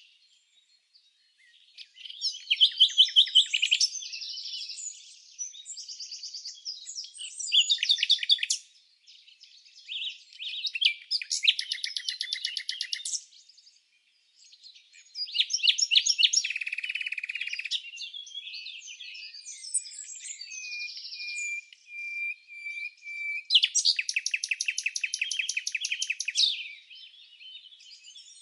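Small songbirds chirping and singing in a string of separate phrases with brief silent gaps between them. The phrases include rapid trills and one steady held whistle.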